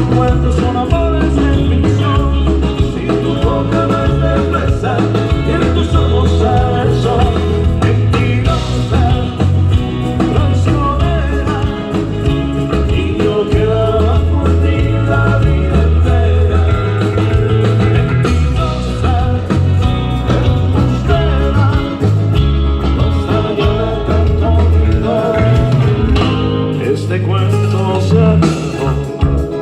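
Live rock band playing a song at a sound check, with a steady bass line and guitar and no singing.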